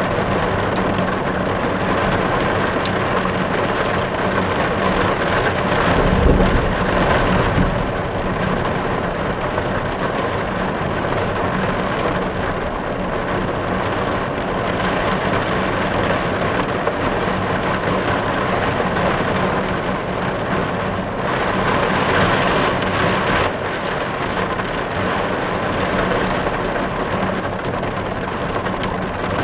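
Rain drumming steadily on a car's roof and windows, heard from inside the car. A brief low rumble swells about six seconds in.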